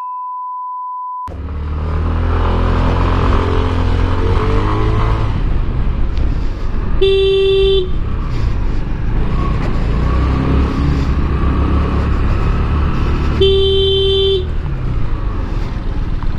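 A single-tone censor beep for about a second, then steady riding noise from a motor scooter, with two horn blasts, each just under a second long and about six seconds apart.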